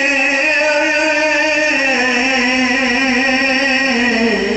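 A zakir's chanted recitation: a man's voice holding one long note, its pitch sinking slowly and dipping a step lower near the end.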